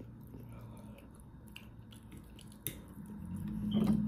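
A person chewing a mouthful of food, with small wet mouth clicks and one sharper click a little before three seconds in. Near the end comes a low, steady closed-mouth hum that grows louder.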